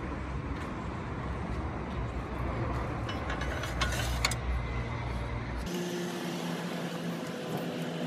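Steady low outdoor rumble with a few light metallic clicks and rattles a few seconds in, as the tow-bar bike rack's frame clamp is handled; the rumble cuts off abruptly and gives way to a faint steady hum.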